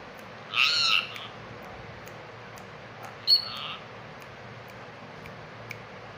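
Indian ringneck parakeet squawking twice: a harsh call lasting about half a second near the start, then a short, sharp, louder squawk about halfway through.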